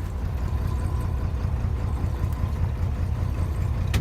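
Engine running steadily, a low rumble with a quick even pulse and a faint steady whine above it.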